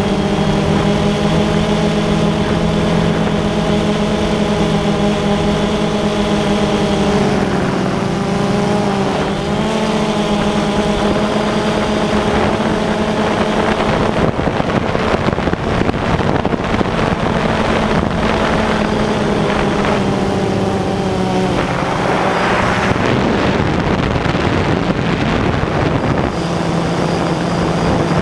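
Multirotor drone's electric motors and propellers whining steadily right at the onboard camera. The pitch dips and climbs back about seven seconds in as the throttle changes. Later a rushing noise, wind over the microphone, grows and for a few seconds covers the whine.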